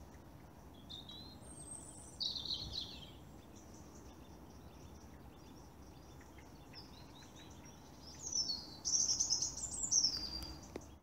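Small woodland birds singing. A few quick, high, falling phrases come about two seconds in, and a louder run of song comes near the end, over a faint steady background hum.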